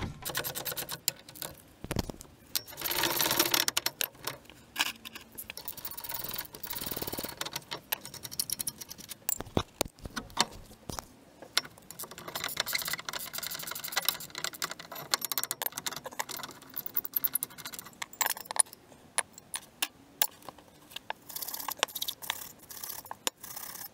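Hand tools and steel brake parts clinking, rattling and scraping in an irregular series of light metallic knocks as the caliper hardware and the brake pad hanger clips are taken off for cleaning, with a brief spell of harsher rasping about three seconds in.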